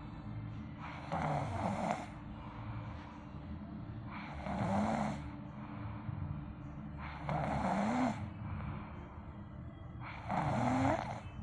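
A child sleeping face-down, snoring: four snores, about one every three seconds, each lasting about a second with a slight rise in pitch.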